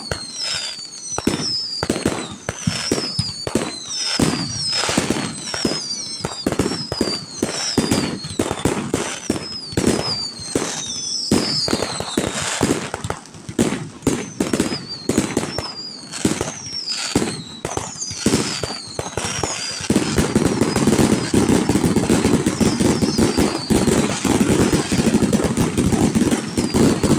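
Fireworks display: a rapid run of bangs and crackles with repeated falling whistles. About twenty seconds in it turns into a denser, louder, continuous barrage.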